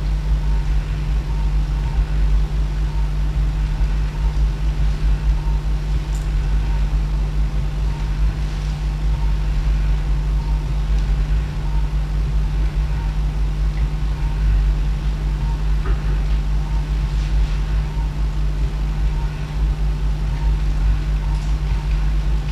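Steady low rumble and hum of operating-room equipment during arthroscopic shoulder surgery, unchanging throughout, with a faint steady tone above it.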